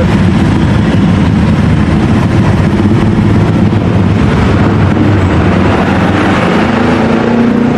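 Loud, steady noise of road vehicles in slow, busy traffic, with a low engine drone and no horn tune standing out.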